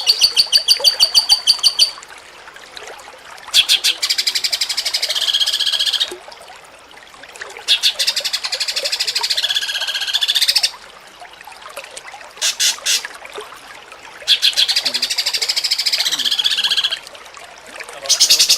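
Cucak cungkok singing as a masteran tutor song: a series of fast, rattling, high trills, each lasting about two to three seconds, with the pitch wavering and dipping, separated by short pauses.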